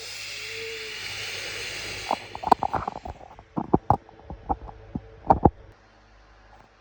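Homemade sound effects: a breathy hiss for about two seconds, then a string of short sharp clicks and snorts that thin out near the end.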